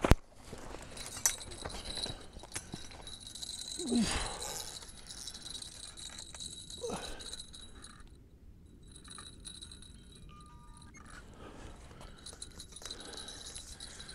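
Light metallic jingling and clicking of fishing rods and tackle being handled, over a faint steady high tone. The loudest moment is a short falling sound about four seconds in.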